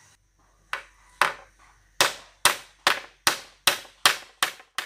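Hammer driving a nail into a wooden batten on a timber frame: two light taps to start the nail, then eight steady blows, about two and a half a second.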